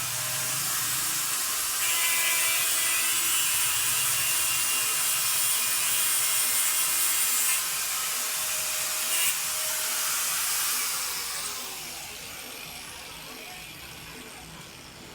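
A power tool running steadily with a loud hissing whine, then winding down and fading from about eleven seconds in.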